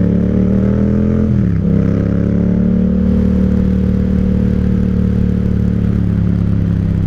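Yamaha MT-07's 689 cc parallel-twin engine running under way, with a quick drop in pitch about a second and a half in, an upshift, then pulling steadily again.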